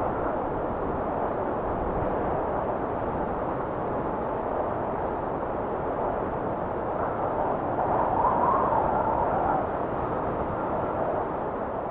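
Recorded wind blowing steadily, swelling into a stronger gust about eight seconds in.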